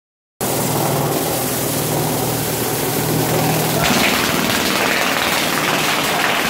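Homemade drum sander running: a sandpaper-wrapped drum belt-driven by a 3/4 HP electric motor, starting abruptly with a steady hum. About three and a half seconds in, a rough grinding hiss joins as a board is fed against the spinning sandpaper.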